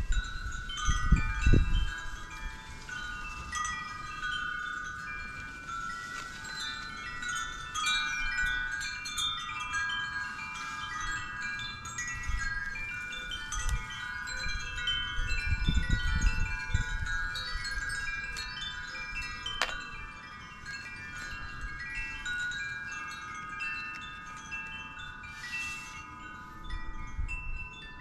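Wind chimes ringing on and off, many overlapping clear tones at different pitches. Low wind rumble on the microphone comes and goes, loudest near the start and in the middle.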